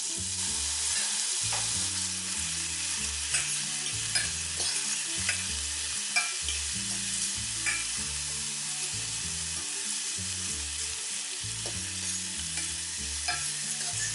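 Minced onion and cumin seeds sizzling in hot olive oil in a pan, stirred with a utensil that clicks against the pan every so often.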